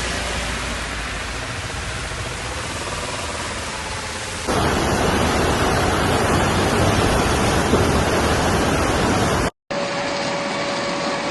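Heavy rain pouring down as a steady rushing noise, cutting to a louder downpour about four and a half seconds in. After a brief break near the end, a civil-defence siren sounds a steady tone over the rain.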